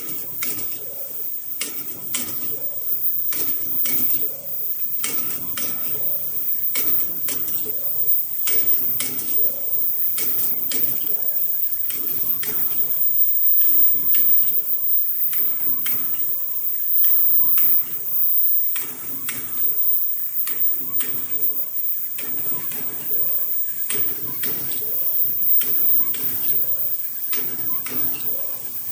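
Mask-making machinery running, with repeated sharp metallic clicks and clatter about once or twice a second.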